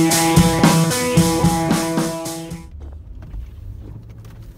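Background music with a steady drum-kit beat and guitar, cutting off sharply a little over halfway through. A quieter low vehicle rumble heard from inside the cabin is left after it.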